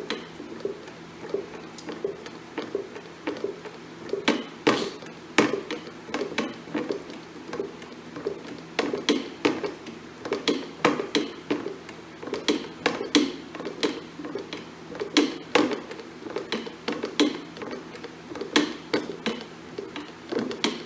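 A hydraulic-ram sleeve puller drawing a broken dry cylinder sleeve out of a Ford TW-20 engine block: a steady run of irregular clicks and knocks, roughly one or two a second.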